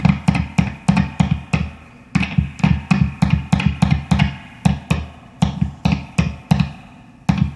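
Humbucker pickup in full humbucking mode (not coil split), amplified as a metal hex key taps its pole pieces: a run of sharp, ringing thuds, about four a second, in bursts with short pauses.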